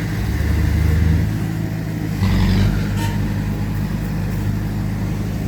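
Heavy diesel engine of earthmoving machinery running steadily, with a brief louder burst of noise a little over two seconds in.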